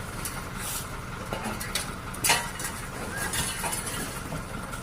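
A vehicle's engine running steadily with a low rumble, with scattered light clicks and one sharp click a little over two seconds in.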